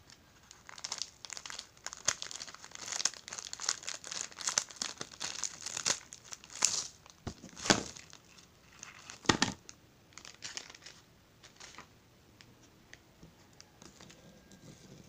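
Clear plastic bag crinkling in irregular bursts as it is handled and a sugar biscuit is worked out of it. The crinkling is loudest about seven to nine and a half seconds in and dies away after about twelve seconds, leaving a few faint clicks.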